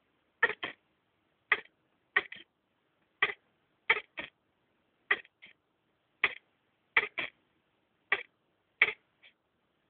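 Hedgehog coughing over and over: short, sharp coughs about once a second, many coming in quick pairs or threes.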